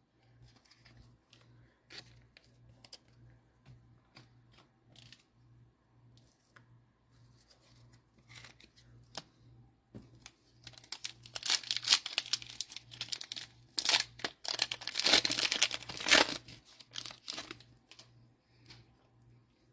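Cellophane wrapper of a Panini Mosaic football card pack being torn open and crinkled: a dense crackling that starts about halfway in and lasts several seconds. Before it, only a few light scattered clicks.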